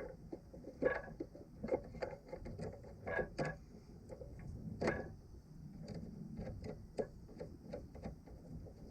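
Irregular light clicks and knocks of parts and tools being handled and set down, the sharpest about a second in and near five seconds in.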